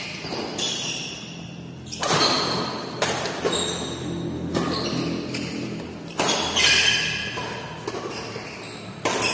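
Badminton rally: a shuttlecock struck back and forth with rackets, a sharp crack about once a second, each echoing in a large hall, some with a brief high ring after it.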